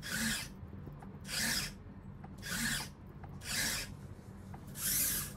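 Nybble robot cat's servo-driven legs working through repeated push-ups: five short rasping, scraping bursts about a second apart as the legs move and a foot scratches on the ground.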